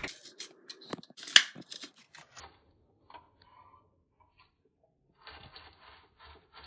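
Small hard objects being handled, heard as scattered clicks with one sharp click about a second and a half in. Near the end comes a run of quick rattling ticks.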